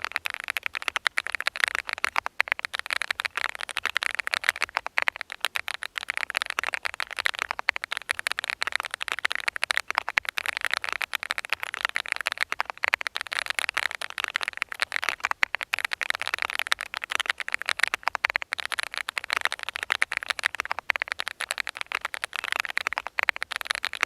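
Continuous fast typing on a Thinkway x VGN TV99 mechanical keyboard with Aurora Ice Cream switches: a dense, steady clatter of keystrokes, many per second.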